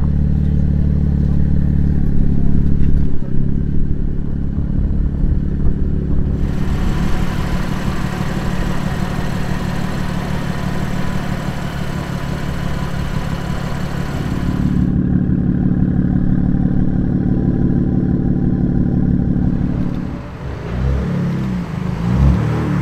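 BMW M4's twin-turbo straight-six through a straight-pipe exhaust, idling with a steady deep drone. Near the end, a few quick revs that rise and fall.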